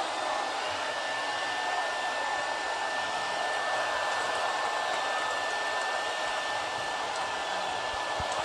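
Sustained applause from a large crowd, the claps blending into an even, steady wash of noise, with a thin steady high tone underneath.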